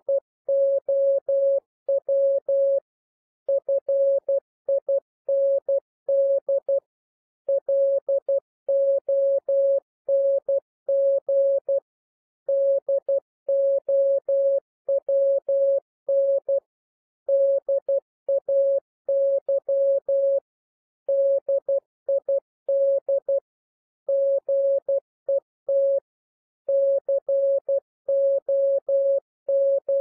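Morse code sent at 12 words per minute as a single steady mid-pitched tone keyed on and off in dots and dashes, with short gaps between letters and longer ones between words. It spells out common English practice words such as "now", "find", "long", "down", "day", "did", "get".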